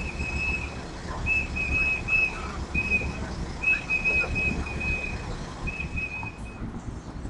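A whistle blown in a run of about ten blasts of uneven length, some short and some held for about a second, stopping shortly before the end. Underneath is a low street rumble.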